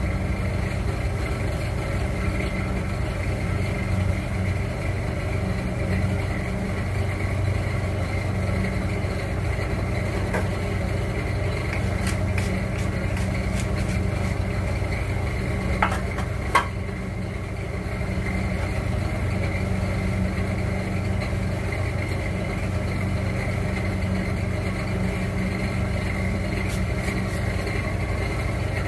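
Steady low machine hum, with a few faint clicks about halfway through.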